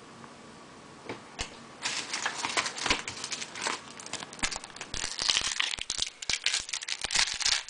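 Foil trading-card pack wrapper crinkling and tearing open by hand: a dense run of crackling that begins about two seconds in, after a lone click.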